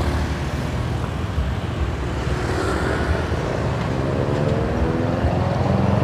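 Street traffic at an intersection: small motorcycle engines and a minivan running, with one engine rising steadily in pitch as it accelerates in the second half.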